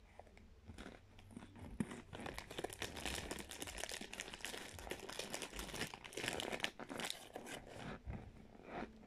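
Mouth chewing a spoonful of raw cornstarch close to the microphone: dense crunchy, squeaky crackling. It starts about a second in and thins out near the end.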